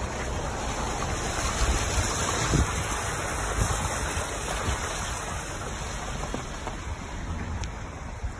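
Rushing floodwater with a steady hiss, and wind buffeting the microphone with a low rumble.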